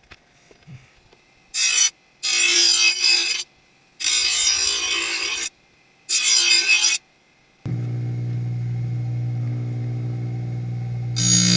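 A Magna-Matic grinding wheel grinding the edge of a steel lawn mower blade in four short passes, each a harsh hiss that cuts off sharply. About two-thirds of the way through, background music comes in with steady sustained notes.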